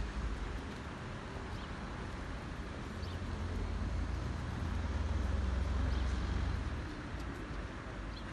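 Outdoor background rumble, mostly low and steady, swelling for a couple of seconds past the middle, with a few faint clicks.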